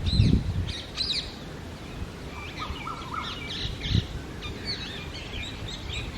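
Birds chirping: a busy run of short, high, bending chirps, with a lower warbling phrase about three seconds in. Low dull thumps come at the start, the loudest sound, and again about four seconds in.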